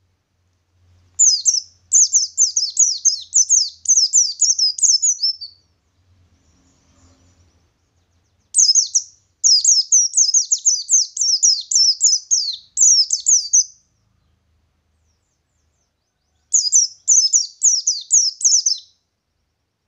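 A pleci ngalas white-eye singing its long rolling song in three bursts of rapid, high, down-slurred twittering notes, each a few seconds long, with short pauses between.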